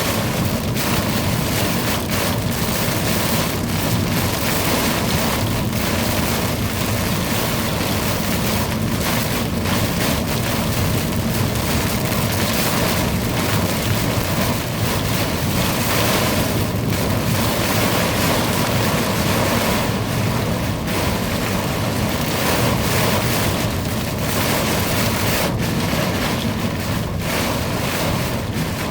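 Heavy thunderstorm downpour in strong wind: a steady, loud hiss of rain with wind rumbling across the microphone.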